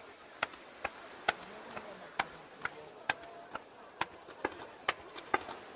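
Fireworks display firing a steady series of sharp bangs, about two a second.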